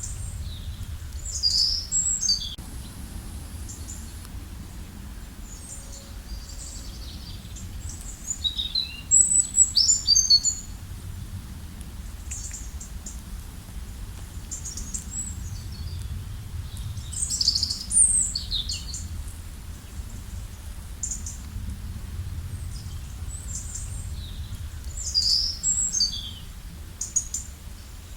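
Songbird singing in a forest: a high phrase of quick, partly falling notes repeated about every eight seconds, with softer chirps between, over a steady low background rumble.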